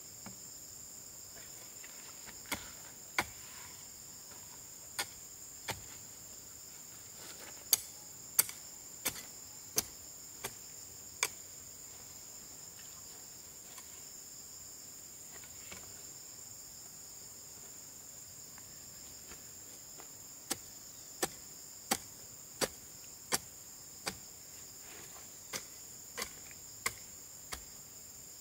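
Sharp blows of a hand tool striking, evenly about 0.7 s apart: a run of about ten strokes, a pause of some nine seconds, then about ten more. Under them runs a steady high drone of insects.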